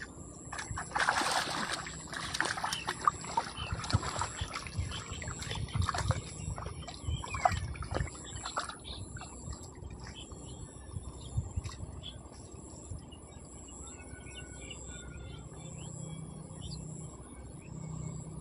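Birds chirping faintly, after a few seconds of loud scuffling, crackling noise with clicks near the start.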